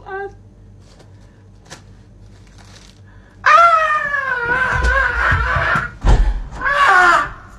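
A small child crying: a long, loud wail starts about three and a half seconds in, breaks off briefly, and a second wail follows near the end.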